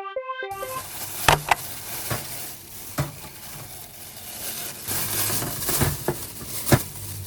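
Kitchen cooking sounds: utensils knocking and clinking against pots and dishes several times, with a stretch of hissing like sizzling food in the middle.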